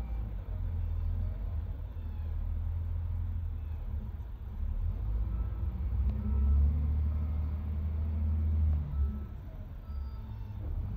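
Diesel engine of an SDLG wheel loader running with a low rumble as it dumps sand into a dump truck, revving harder from about five seconds in and easing near the end; the dump truck's engine runs alongside it.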